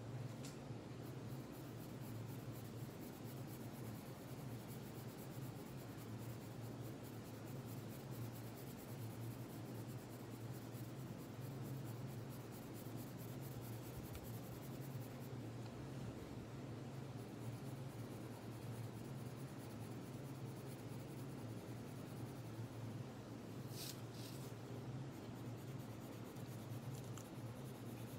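Red coloured pencil scratching on paper in many quick shading strokes, over a steady low hum. A couple of brief ticks a little before the end.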